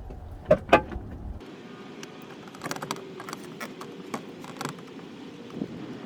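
Work on a minivan's plastic interior trim: two sharp knocks about half a second in, then a run of light clicks and rattles as trim and screws are worked loose.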